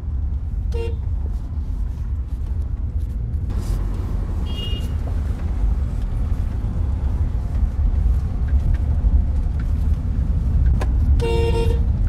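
Cabin of a Honda CR-V driving over a rough, potholed dirt road: a steady low rumble of tyres and road, with no clunking from the suspension, which has just been overhauled with new bushings, link rods and ball joints. A car horn toots briefly about a second in and again near the end.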